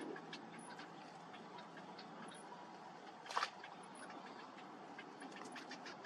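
Soft scattered ticks and rustles from a cinnamon bittern and its downy chicks moving in their reed nest during feeding, with one short, sharper sound a little over three seconds in.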